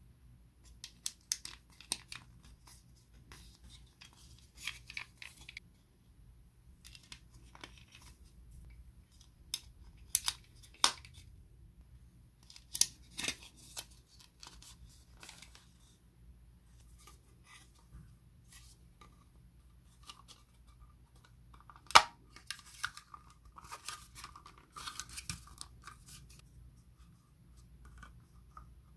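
Plastic model kit parts of a Bandai Cup Noodle kit being pressed together by hand: scattered clicks and snaps as the pieces seat, with short bouts of plastic rubbing and scraping. One sharp snap about three quarters of the way through is the loudest sound.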